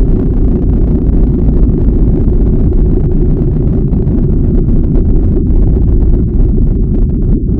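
Loud, steady, deep rumbling noise with no pitch or rhythm, all of it low down with almost nothing high.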